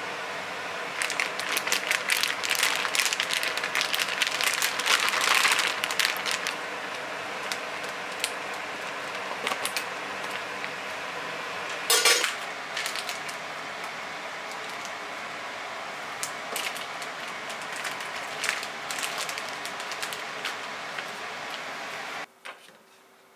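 Kitchen handling sounds: a plastic zip-top bag crinkling as food is put in and worked, with small clinks of utensils and dishes over a steady low hum. One sharp knock comes about halfway through, and the background drops away suddenly near the end.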